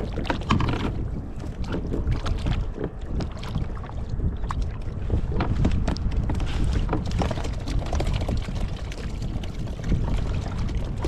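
Wind buffeting the microphone on a kayak at sea, a constant low rumble, with many small knocks and taps from handling fishing gear and fish on the boat.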